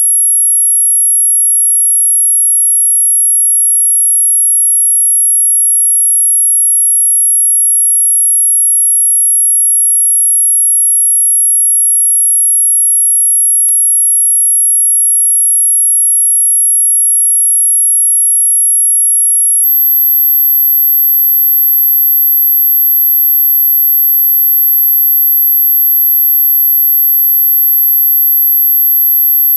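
Electronic high-frequency anti-bark tone: a loud, pure, very high-pitched steady whistle that jumps to a slightly higher pitch about twenty seconds in and holds there.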